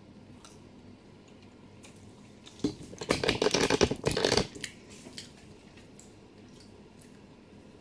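Handling noise as the camera is picked up and moved: a loud burst of rustling and knocking on the microphone lasting under two seconds, starting about two and a half seconds in, over quiet kitchen room tone.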